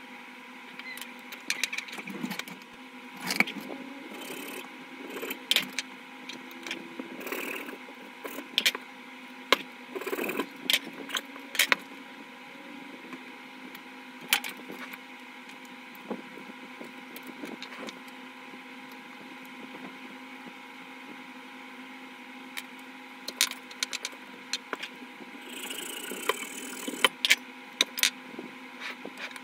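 Small wooden pieces being handled, fitted together and set down on a desk, making scattered light clicks and taps over a steady background hum. The taps thin out midway and pick up again near the end.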